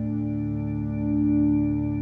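Background music: soft ambient music of long held chords that slowly swell and fade.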